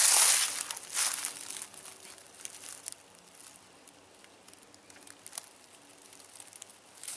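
Footsteps crunching through dry leaf litter in the first second or so, then dying away to faint rustles and small cracks in the leaves.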